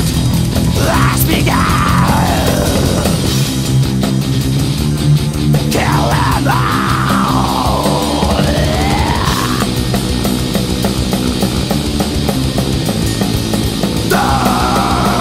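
Black metal band playing, with distorted guitars, bass and drums, loud and dense. Twice a high tone swoops down and back up over the top.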